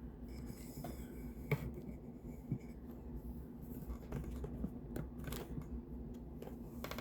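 Faint, scattered clicks and taps from handling plastic supplement bottles and packaging, over a low steady hum.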